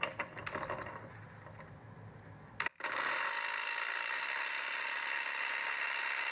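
Ryobi PSBID01 brushless compact impact driver hammering steadily on a truck lug nut torqued to 100 ft-lb, driving a half-inch socket through a quarter-inch hex adapter, for about four seconds. The tool struggles at that torque but breaks the nut free. A few faint clicks come before it starts.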